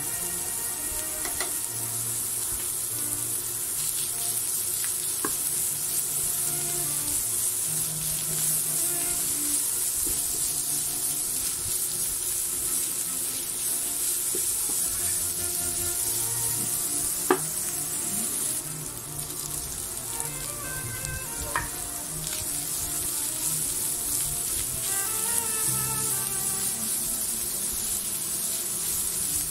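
Ground pork, diced onion and bell pepper sizzling in a frying pan as they are stirred with a spatula, with a few sharp knocks of the spatula against the pan. The sizzle eases a little about two-thirds of the way in. Background music plays throughout.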